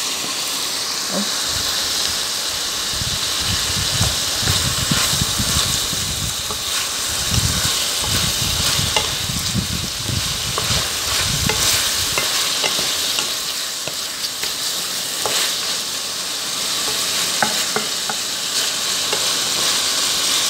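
Chicken pieces sizzling as they fry in oil in a pot, stirred with a spatula that scrapes and clicks against the pot now and then. The chicken is being lightly fried until its colour changes.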